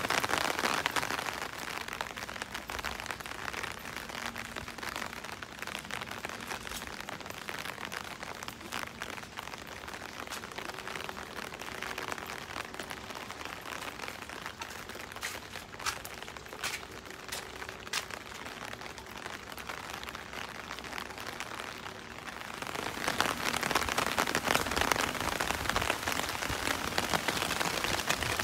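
Steady rain falling on a wet street and surrounding surfaces. It softens after the first couple of seconds, with a few sharp drip ticks in the middle, and grows heavier again about three quarters of the way through.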